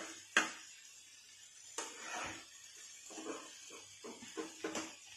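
Steel spatula knocking and scraping on a black iron pan while thick masala is pushed over fish pieces. Two sharp knocks come right at the start, then a run of short scrapes follows in the second half.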